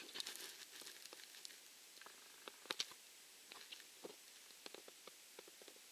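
Faint, scattered clicks and crackles in near silence, a few louder ticks about three seconds in.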